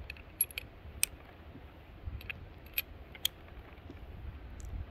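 Sharp, scattered metallic clicks of a single-action Richards-Mason conversion revolver being loaded by hand: the cylinder clicking round past its stop through the open loading gate, and brass cartridges sliding into the chambers, about eight to ten clicks in all.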